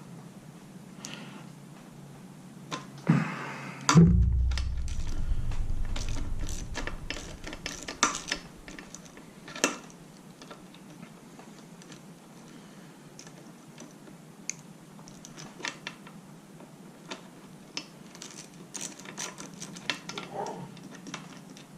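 A ratchet wrench clicking in short runs as the lower-unit bolts of an old outboard motor are worked loose, with scattered clinks of metal tools. About four seconds in there is a loud thump with a low rumble that fades over a few seconds.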